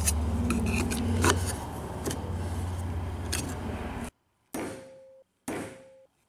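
Light clicks and knocks of a plastic marking jig being handled on a steel block over a steady low hum. About four seconds in, two sharp metallic taps about a second apart, each with a short ringing note, as a marking punch held in the jig is struck to mark hole positions on the steel Y roller block.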